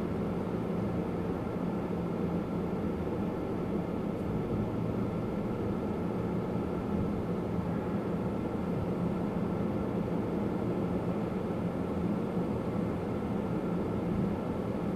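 Steady drone inside a pickup truck's cab, engine and road noise at an even level throughout.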